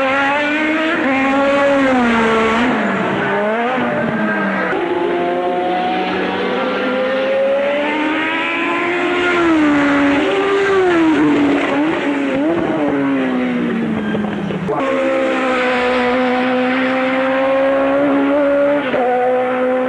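1984 Formula 1 car engines running at high revs, the pitch repeatedly climbing and dropping as the cars accelerate and lift. The sound changes abruptly about 5, 15 and 19 seconds in.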